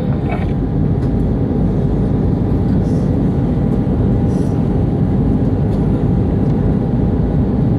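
Steady cabin drone of an Airbus A319 airliner in flight, from engine and airflow noise, with a faint steady tone through it, heard from a passenger seat during the descent to landing.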